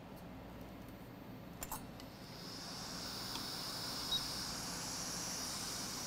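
Hot-air rework station blowing: a steady airy hiss fades in about two seconds in and holds. A faint click comes before it, and a short faint high beep about four seconds in.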